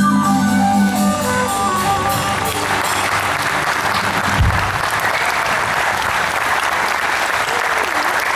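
The band's closing chord rings and fades over the first couple of seconds. A large audience then breaks into applause that builds and carries on steadily, with a single low thump about four and a half seconds in.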